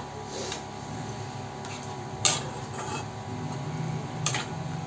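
A long steel spatula stirring soya chunks in watery curry in a metal kadhai, with about four sharp clinks of metal on the pan, the loudest a little over two seconds in, over a steady low hum.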